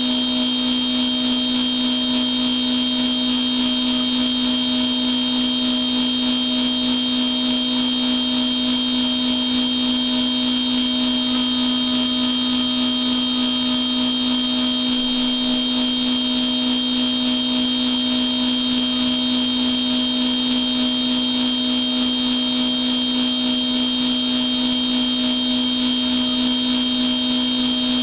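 Machine tool running through a machining program without coolant and without removing material: a steady hum with a high whine over it.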